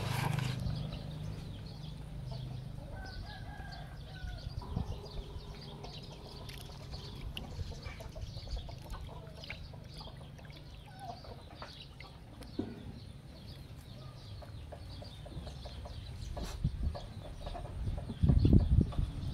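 Chickens clucking in the background, with scattered small clicks and splashes from hands in shallow muddy water. A brief low rumble near the end is the loudest moment.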